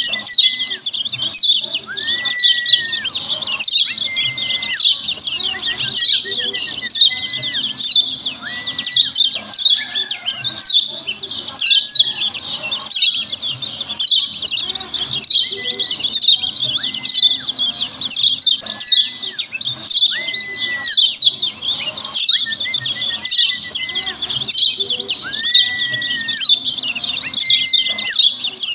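Kecial kuning (yellow white-eye) giving its rapid, clear 'ciak ciak' chattering call, with a loud burst of chirps about once a second and thin whistled notes between them.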